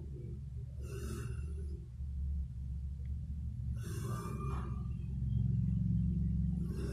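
Tabby kitten facing a cornered mouse with a low, steady growl, broken by short hisses about every three seconds; the growl grows louder near the end. The kitten is wary and defensive.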